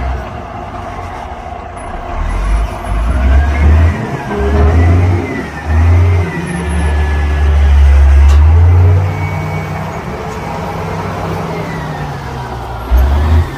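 Diesel engine of heavy road-construction machinery working, with heavy low rumbling that swells and falls repeatedly as the load changes, loudest around the middle.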